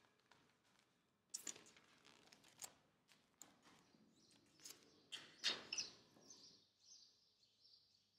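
Near silence, broken by a few faint, short clicks and rustles of a paper note being handled, clustered about a second and a half in and again between five and six seconds in.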